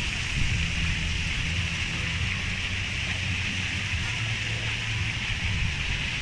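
Wind rumbling on the phone's microphone over a steady hiss of splashing water.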